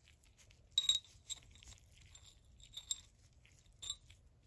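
Steel ratchet parts clinking together as they are handled: a sharp metallic clink with a short ringing tone about a second in, then a few lighter taps and clicks.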